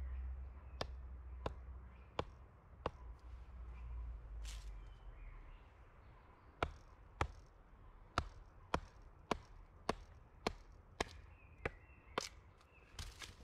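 An axe chopping into wood: about seventeen sharp, regular blows, roughly one every half to two-thirds of a second, with a pause of a few seconds in the middle.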